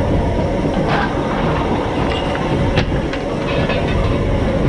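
The 158-year-old steam locomotive FR20 running along the line, heard from its footplate: a steady rumble with rail clatter, and a few sharp clicks, the sharpest about three seconds in.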